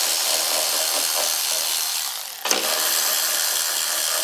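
Cordless electric ratchet spinning out the 13 mm screws that hold a motorcycle's battery cover, running steadily in two stretches with a brief break a little over two seconds in.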